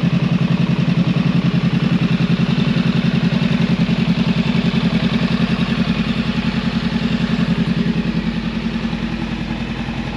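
Honda Rebel 500's parallel-twin engine idling with an even, rapid pulse, easing a little quieter near the end.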